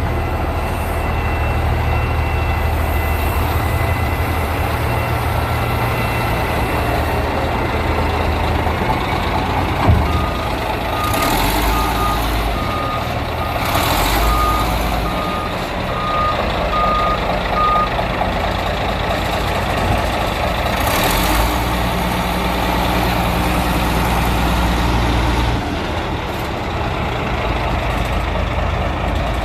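Caterpillar 627 motor scraper's diesel engines running, their pitch shifting several times. A backup alarm beeps about every half second for several seconds midway, and there is a single short thump just before it starts.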